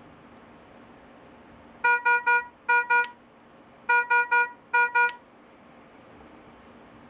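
Philips IntelliVue MP70 patient monitor sounding a high-priority (red) alarm: ten short beeps of one pitch, in groups of three then two, then three then two again, starting about two seconds in.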